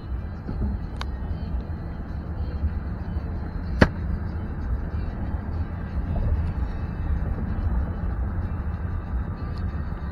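Road noise inside a moving car on the highway: a steady low rumble of engine and tyres, with one sharp click nearly four seconds in.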